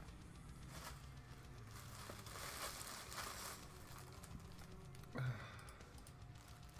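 Faint crinkling and rustling of something being handled, with a breathy hiss that swells and fades a couple of seconds in. A short grunt comes about five seconds in.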